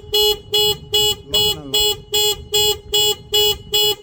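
Car alarm sounding: a loud pitched beep repeating evenly, about three and a half times a second.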